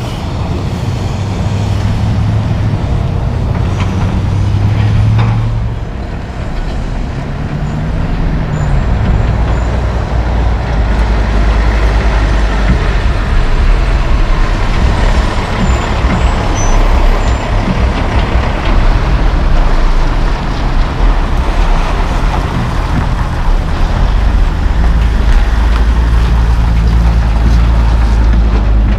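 Heavy diesel dump truck engines pulling loaded trailers of crushed rock, running steadily under load with a deep rumble. Engine pitch rises and falls once about eight seconds in.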